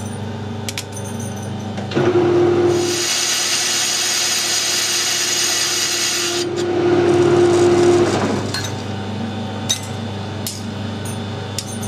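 Metal lathe running with a steady hum while the tool takes a turning cut on the register of a chuck back plate. The cut starts about two seconds in and ends around eight and a half seconds, with a steady ringing tone as the tool goes in and comes out and a high hiss in between.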